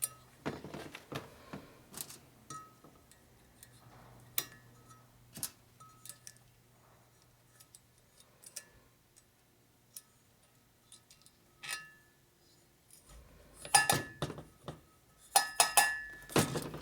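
Valve springs and metal tools clinking and clicking as they are handled and set on a spring tester, with scattered single ticks and a denser run of louder ringing clinks near the end.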